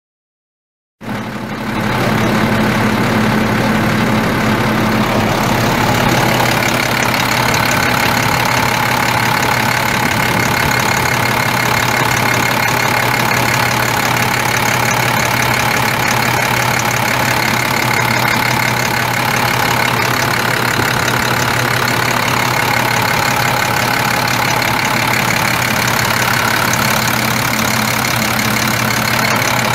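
International DT466 7.6-litre inline-six turbo diesel of a 2002 International 4900 truck idling steadily. The sound cuts in abruptly about a second in.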